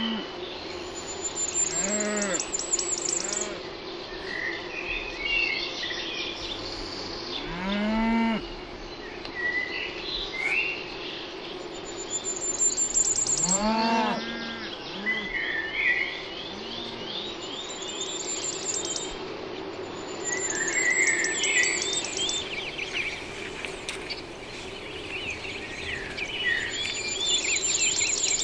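Cattle mooing in a series of short calls, about seven in the first half, then stopping. Small birds sing and chirp throughout, with repeated high trills, over a steady low hum.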